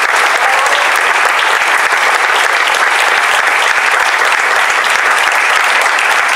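Audience applauding: loud, dense, steady clapping.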